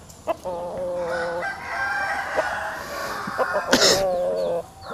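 Roosters crowing: two long crows, one after the other, the second lasting nearly three seconds. A short rattle a little before four seconds in as the net cage is lifted.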